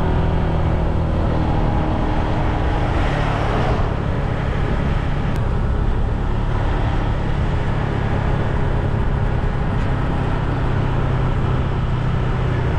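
Motor scooter being ridden at a steady speed: an even engine hum under a constant rush of wind and road noise.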